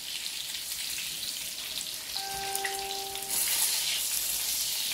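Breaded pork schnitzels sizzling and crackling in hot frying oil in a pan. About two seconds in, a steady electronic-sounding tone lasts a little over a second, and then the sizzle briefly grows louder.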